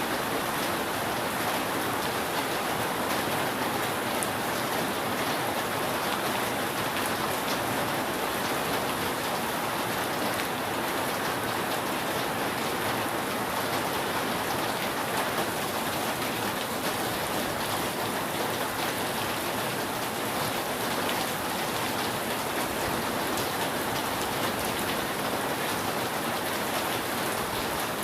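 Steady rain falling on a roof: an even hiss with a fine patter of drops, no thunder.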